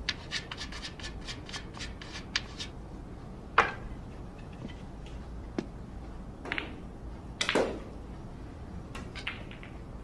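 A pool cue tip being chalked with quick rubbing strokes, then several sharp clacks of billiard balls being struck, the loudest about three and a half seconds in.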